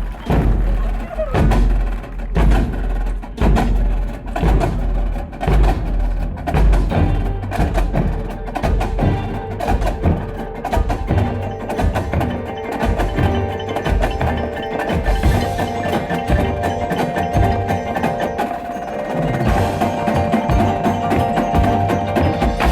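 Drum and bugle corps playing live: a dense run of percussion strokes with mallet instruments such as marimba, and held chords coming in near the end.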